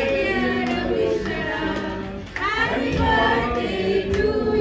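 A group of adults and children singing together, several voices at once.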